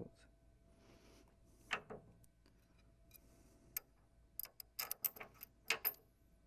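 Metal vise jaws on a pipe-threading machine carriage being handled and turned around: a soft knock, a single click, then a quick run of sharp metal clicks and clinks near the end.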